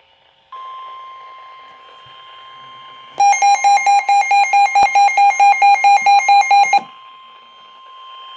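Emergency alert warning tone: a single steady tone of about 1050 Hz, the NOAA Weather Radio warning alarm, over faint radio hiss, signalling a severe thunderstorm warning. About three seconds in, a much louder rapid electronic beeping, about five beeps a second, cuts in over the tone for roughly three and a half seconds and then stops.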